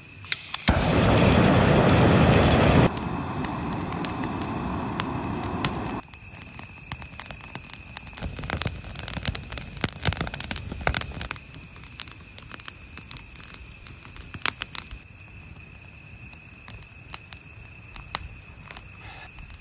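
Handheld butane gas torch blasting its flame into stacked firewood, loudest for about two seconds, then lower until it cuts off about six seconds in. After that, the lit wood fire burns with scattered crackles and pops.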